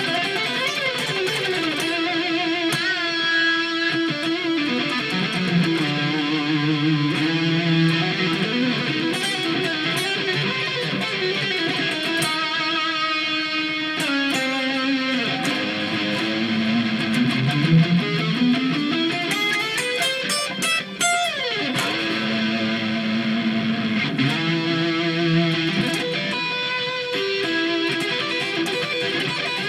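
Electric guitar practice in a rock style: single-note riffs and lead lines with slides, including a long rising slide and a fast downward sweep about two-thirds of the way through.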